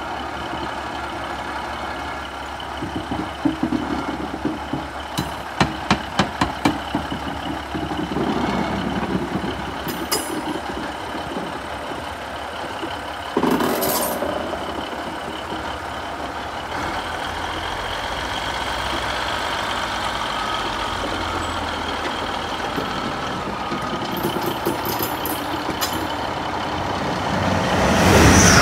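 Network Rail Class 950 Track Recording Unit, a two-car diesel multiple unit, running slowly past with its diesel engine rumbling steadily. Its wheels click sharply several times in quick succession over rail joints and points a few seconds in. There is a short burst of hiss about halfway through, and the sound gets louder near the end.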